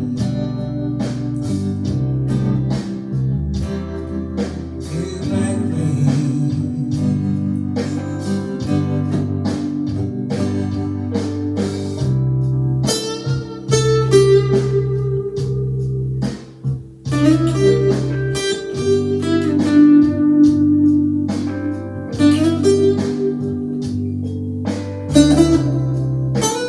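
Instrumental break in a slow blues-tinged song: a lead guitar plays single plucked notes, some of them bending in pitch, over held bass notes and a backing band.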